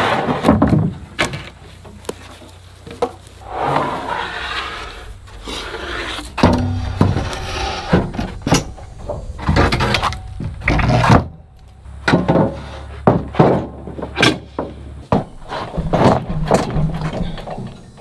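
Pine boards being handled and set down on a steel sawmill bed: a string of wooden knocks and thuds, with scraping slides of board on board and board on metal between them.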